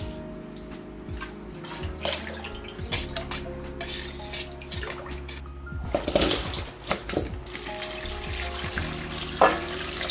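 Water running and splashing, as from a kitchen tap into a sink or bowl, over soft background music with steady held notes. There is a louder splashy stretch about six seconds in and a sharp knock near the end.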